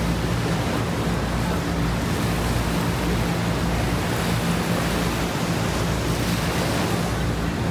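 Steady wash of small waves breaking on a sandy beach, with wind on the microphone.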